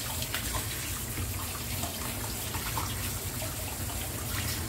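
Kitchen tap running steadily into a water-filled stainless steel wok as hands rub and rinse parboiled chicken wing pieces, with small splashes.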